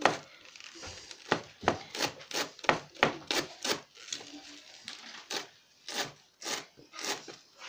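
Chef's knife finely slicing rolled collard greens on a plastic cutting board: a quick, slightly uneven run of chops, about three a second, each stroke ending in a tap of the blade on the board.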